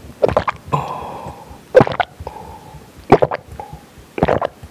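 A person gulping water from a glass mug, close-miked: about four loud swallows, each a little over a second apart.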